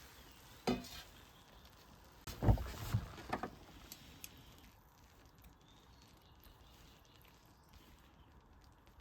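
A single sharp knock a little under a second in, then a louder cluster of knocks and clatter around the middle, with only a quiet background after.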